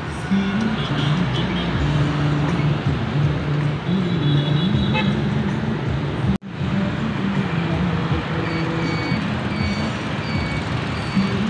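Road traffic: motorbikes and a truck passing along a town road. Low tones step up and down over the traffic like a tune, and the sound drops out abruptly for a moment about six seconds in.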